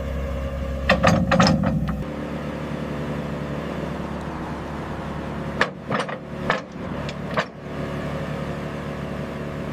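Excavator engine running steadily, with sharp clanks and knocks from the machine working, a few about a second in and a cluster between about six and seven and a half seconds in.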